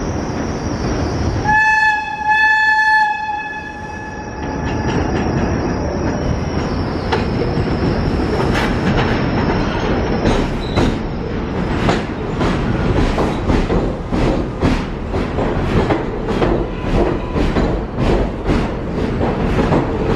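New York City Subway 7 train arriving at the platform: its horn sounds in two short blasts about a second and a half in, over the train's rumble. From about halfway through, the wheels clack over the rail joints in a steady rhythm, about one and a half clacks a second, as the cars roll past.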